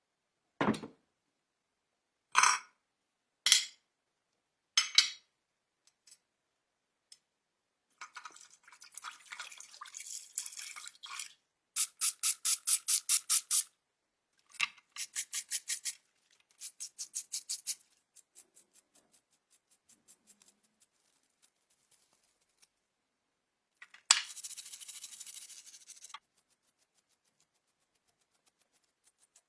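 Four sharp knocks on a small hard object, then bursts of rapid back-and-forth scrubbing or rubbing strokes, at times about eight a second, as a vintage perfume bottle is worked on by hand.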